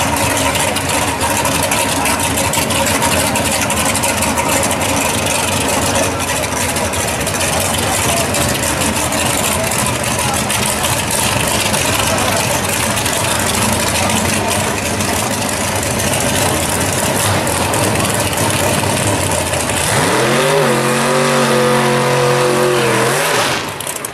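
1957 Chevrolet drag car's engine running hard at high revs through a burnout, a dense roar. About twenty seconds in the engine note turns clear, rises briefly and holds steady at lower revs, then drops off just before the end.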